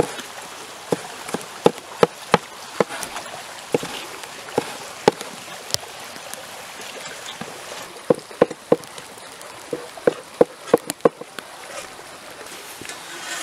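Cleaver chopping tomatoes on a wooden cutting board: irregular sharp knocks, several in quick runs, over a steady background hiss.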